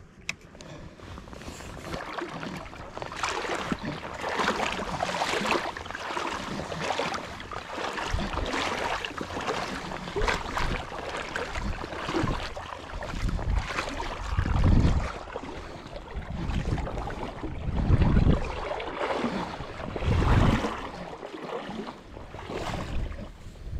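Steady rush of river water with wind buffeting the microphone in several strong low gusts, the loudest about three-quarters of the way in.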